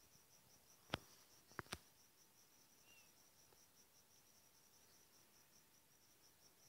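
Near silence with a faint, high chirp repeating about four to five times a second, and three short sharp clicks about one to two seconds in, the first the loudest.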